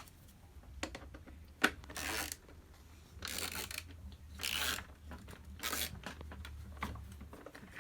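Screwdriver with a T10 Torx bit turning screws out of a space heater's plastic base: a series of short rasping strokes with a few sharp clicks in between.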